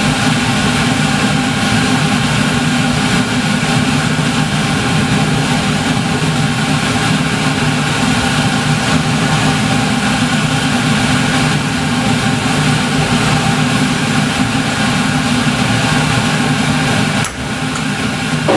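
Steady, loud running noise of the sleeper train heard at a door with its window open: a low hum whose tones hold an even pitch, over a rushing hiss. The level drops suddenly about 17 seconds in.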